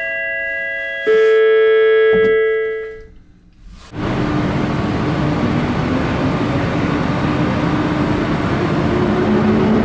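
An electronic chime rings as the funicular sets off: a steady tone, then a louder ringing chord about a second in that fades out by about three seconds. From about four seconds in, the Pitztaler Express funicular car rolls steadily along its cable-hauled track in the tunnel, with a low hum.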